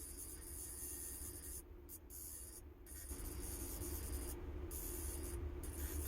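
Tattoo machine running with a steady buzz while its needle is dipped in black ink; it grows a little louder about three seconds in.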